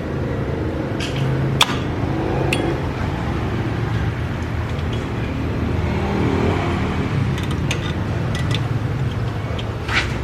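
Hand tools clinking on metal now and then during car repair work, over a steady low hum.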